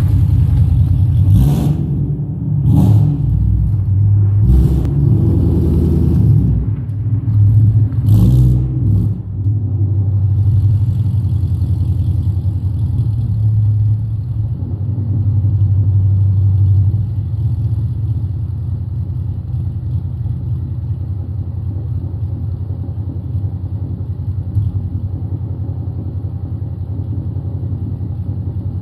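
Ford Mustang GT's Coyote 5.0 V8, breathing through Kooks long-tube headers, an X-pipe and an MBRP race cat-back exhaust, revved in several quick blips, then settling into a loud, rumbling idle that drops a little about halfway through. The engine is cold, on its first start and warm-up of the year.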